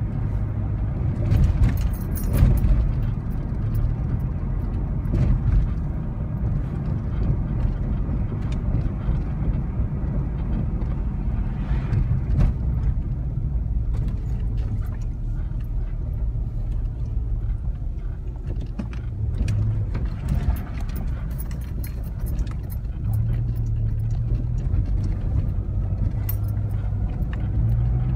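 Car cabin noise while driving slowly: a steady low engine and tyre rumble, with a few short clicks and rattles scattered through it as the car rolls over rough, torn-up road.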